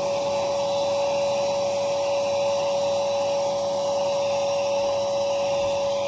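Lavor Ashley 111 800 W ash vacuum running steadily: an even rush of air with a constant whine over it.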